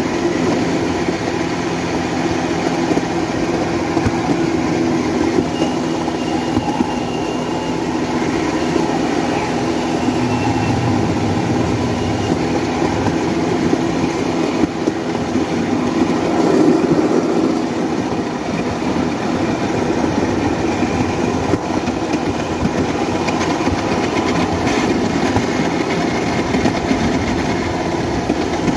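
Motorcycle engine of a motorodillo, a homemade rail trolley, running steadily, with the rattle of its rollers running along the rails.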